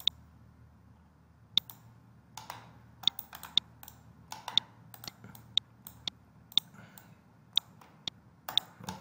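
Computer mouse clicking, a string of irregular sharp clicks about two a second, as dimension points are picked in a CAD program.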